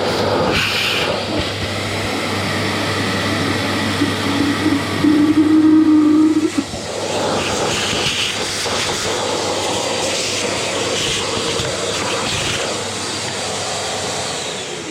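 Vacuum cleaner running steadily, its pitch briefly changing in the middle as the nozzle draws on something, then switched off at the end with the motor winding down.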